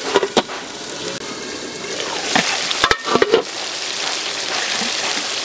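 Fish curry sizzling and bubbling in a metal karahi, a steady hiss, with metal clinks of the pan lid being handled: a couple just after the start and a cluster about three seconds in.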